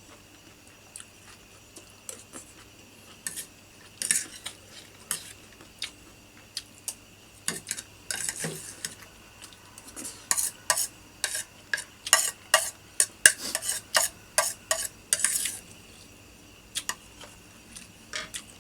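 A metal spoon clinking and scraping against a plate in quick, irregular strokes, busiest in the middle stretch, as the last of the rice and curry is eaten off it.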